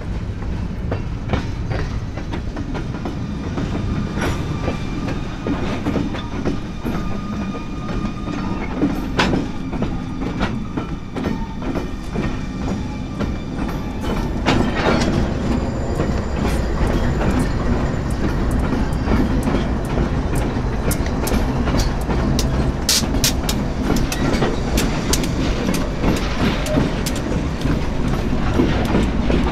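Freight train rolling past, with a steady low rumble and steel wheels clicking over the rail joints.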